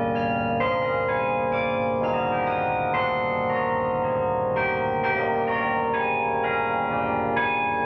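Bok Tower's carillon: bronze tower bells played from the baton keyboard in a slow melody with chords. A new note or chord is struck every half second to a second, and earlier bells keep ringing under them.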